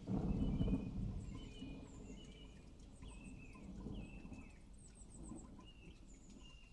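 Small birds chirping in short repeated phrases. A loud low rumble sets in at the start and fades over about two seconds.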